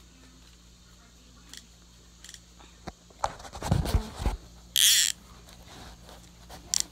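Phone handling noise: after a few quiet seconds with faint ticks, rubbing and knocking as the phone is gripped and moved, a brief hiss about five seconds in, and a couple of sharp clicks near the end.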